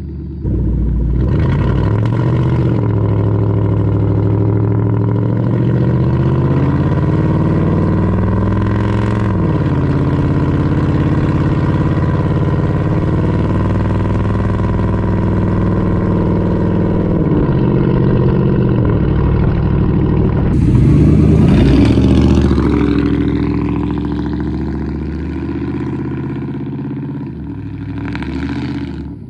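Exhaust of a 1997 Ford F-150's 5.4 Triton V8 running true dual straight pipes with no catalytic converters, loud as the truck accelerates and drives. The engine note climbs and drops back several times and is loudest about three-quarters of the way through.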